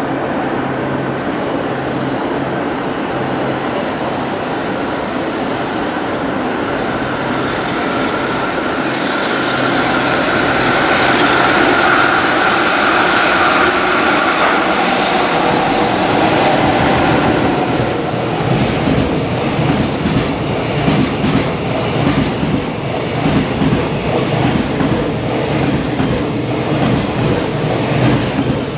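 JR Freight EF66 electric locomotive approaching and running through at speed. Its noise builds to a peak as it passes about halfway through, then a long train of loaded container wagons rolls by with a steady clickety-clack of wheels over rail joints.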